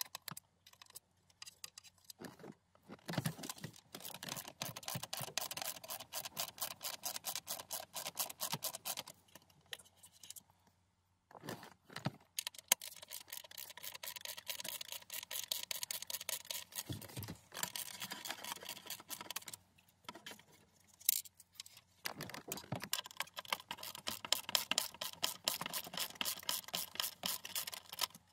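Small hand ratchet with a 5/32 socket clicking rapidly while backing out dashboard screws, in three long runs with pauses and a few single knocks between them.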